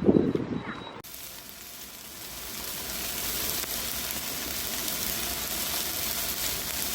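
A short loud sound, then from about a second in a steady sizzling hiss of food frying on a hot pan or grill, growing slightly louder.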